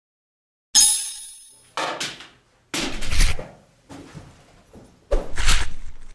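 Swords clashing in a staged fight with bamboo kendo swords: a sharp ringing clash about a second in, then a run of further loud hits and scuffles, the last big one near the end.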